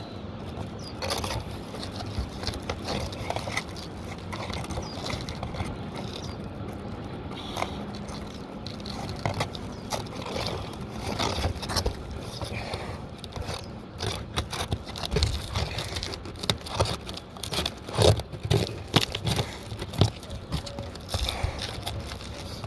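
Stiff asphalt roof shingles being pried and worked loose from underneath, with scraping and crackling against the shingles and irregular knocks that get louder in the second half.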